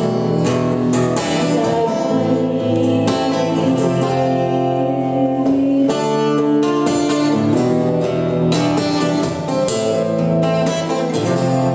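Instrumental passage of a song: guitar strumming chords, with no singing.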